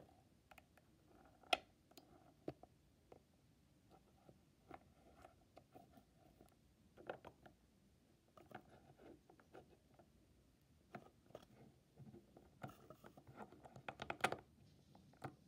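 Faint, scattered clicks and taps of small plastic toy figures being handled and set down on a wooden surface, with one sharper tap about a second and a half in and a quick run of taps near the end.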